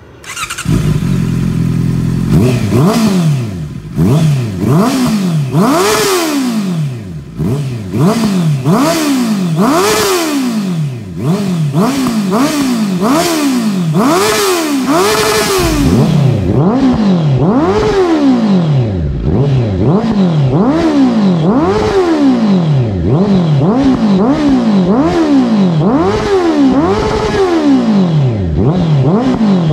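A 2023 Honda CB650R's inline-four engine, breathing through an aftermarket full exhaust system with a black muffler, revved over and over in neutral. After a brief steady idle at the start come short throttle blips, each a quick rise and fall in pitch, roughly one a second.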